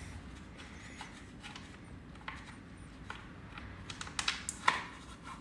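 Light clicks and ticks of a loosened Allen bolt being turned out by hand from the plastic radiator side cover of a Yamaha MT-09 SP, with a few sharper clicks about four to five seconds in.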